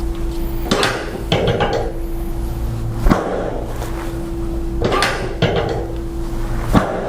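Sharp thuds and clunks from hands-on chiropractic work on a treatment table, about six in seven seconds, over a steady low hum.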